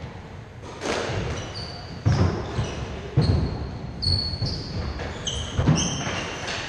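Squash rally: sharp echoing cracks of the ball struck by rackets and hitting the court walls, about four in all, with short high squeaks of shoes on the wooden floor in between.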